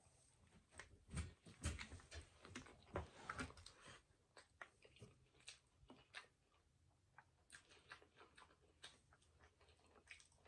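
Faint, close-miked chewing of a chili cheese hot dog: soft wet smacks and mouth clicks, busiest in the first few seconds, then sparser.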